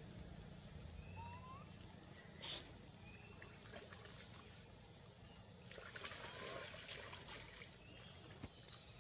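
Faint outdoor ambience: a steady high-pitched hum with a few short rising chirps. About six to seven seconds in comes a brief patch of rustling and clicks.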